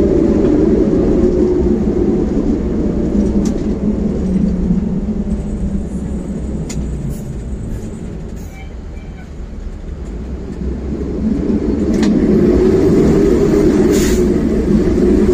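2018 Pierce Saber fire engine's diesel engine and road noise heard from inside the cab while driving: a steady low rumble that drops in the middle and builds again near the end, with a few clicks and rattles.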